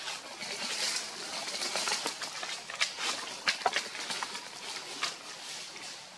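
Mother macaque eating a ripe mango: a few short wet smacks and clicks from biting and chewing the soft flesh, over a steady faint hiss.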